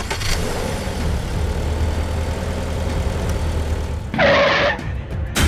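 Engine of an RC construction vehicle running steadily with a low hum. A short, louder, harsher burst comes about four seconds in.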